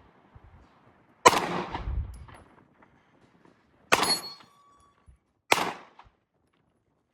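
Three pistol shots, spaced a second and a half to nearly three seconds apart, the first the loudest with a long rumbling tail; a brief ringing tone follows the second shot.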